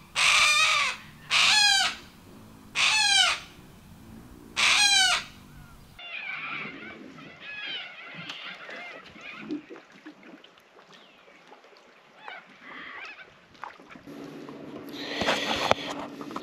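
A white cockatoo calling, four loud harsh calls about a second and a half apart, each dropping in pitch at the end. After that come fainter scattered bird calls, and near the end a rushing noise with a low steady hum.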